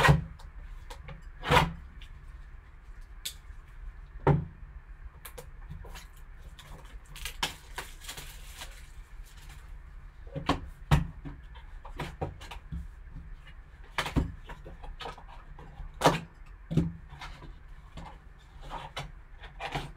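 A sealed cardboard trading-card box being unwrapped and opened by gloved hands: scattered knocks and taps as it is set down and turned, with plastic shrink wrap rustling for a stretch about seven to nine seconds in.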